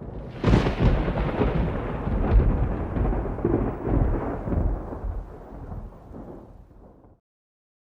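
A deep, rolling rumble that starts abruptly about half a second in, with crackling peaks in its first few seconds, then fades away and cuts off sharply about seven seconds in.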